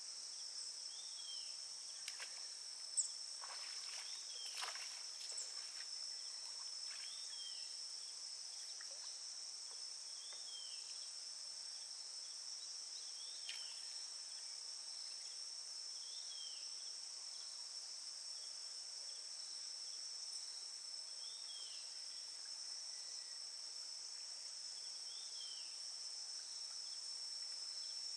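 Steady high-pitched drone of an insect chorus, with a short falling chirp repeating every two to three seconds and a few faint clicks in the first several seconds.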